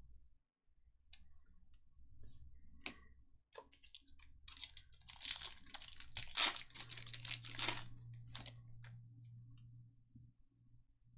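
Foil trading-card pack wrapper being crinkled and torn open, a dense crackling for a few seconds in the middle, after some light clicks of handling.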